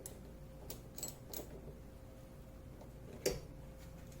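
Scattered small metallic clicks and clinks of a socket tool working on the rack's bolts as they are tightened, with the loudest click about three seconds in.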